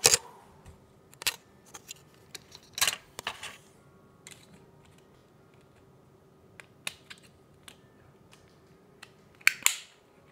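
Cardboard model-kit box being handled against a wooden tabletop: irregular sharp taps and short scrapes, loudest at the very start, around three seconds in, and near the end.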